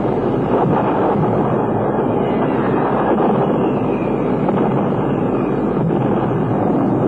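B-17 bomber engines droning: a loud, steady, unbroken rumble.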